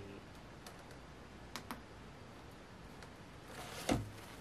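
Handling of a plastic doll and its small plastic hair bow: two quick light clicks about a second and a half in, then a brief rustle and a louder knock near the end.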